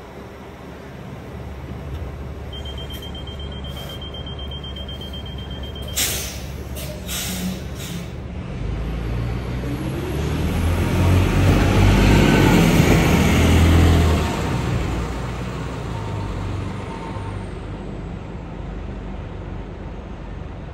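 MCI commuter coach bus pulling away from a stop. A steady high beeping for a few seconds, then sharp air hisses about six seconds in as the air brakes release, then the diesel engine accelerating as the bus passes close, loudest in the middle and fading away.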